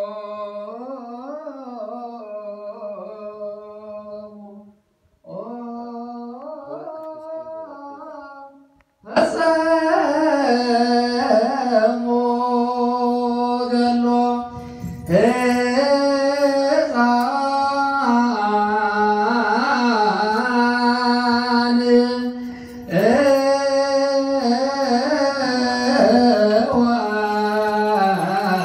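Orthodox Tewahedo clergy chanting a liturgical hymn in unison through microphones, with winding, ornamented lines over a held low note. It is softer at first, then about nine seconds in it turns much louder and fuller, with two short breaks later on.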